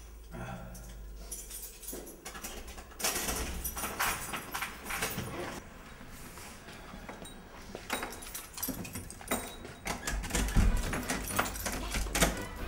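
Keys jangling and clicking in a door lock, and an apartment door being opened, then shut and worked from inside, with scattered clicks and knocks that are loudest near the end.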